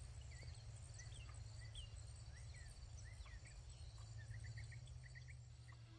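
Faint evening outdoor ambience: insects chirring steadily with scattered short bird chirps over a low, steady rumble.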